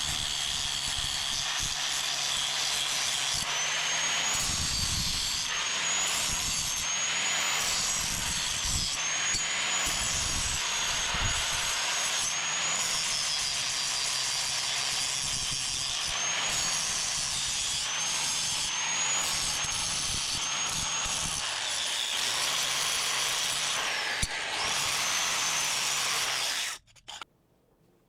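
Handheld grinder cleaning up a steel bracket: a loud, steady high motor whine that sags when the tool is pressed onto the metal and picks back up when eased off, several times over, then stops abruptly shortly before the end.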